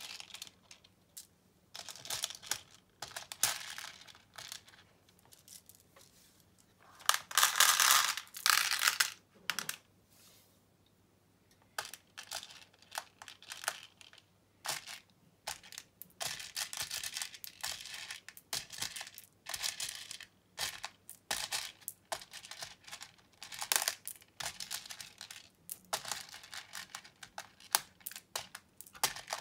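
Plastic pony beads clicking and rattling as handfuls are scooped from a loose heap and dropped into the compartments of a plastic organiser box. It comes in scattered bursts of clatter, the loudest about seven seconds in, with a short lull a few seconds later.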